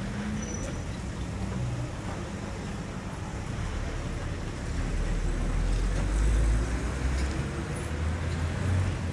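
Street traffic noise, with a motor vehicle passing and a low engine rumble that swells about five to seven seconds in.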